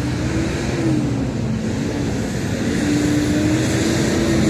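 Road traffic running by: a steady rumble with a motor hum that rises and falls twice as vehicles pass.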